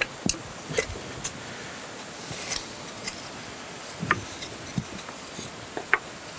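Wooden blocks cut from 2x4 lumber being set and wedged against a cast-iron steam chest: a few separate knocks and clicks spread out irregularly, the sharpest about four and six seconds in.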